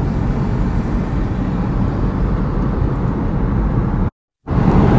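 Car cabin noise: a steady low rumble of a car moving along the road. It cuts out completely for a moment about four seconds in.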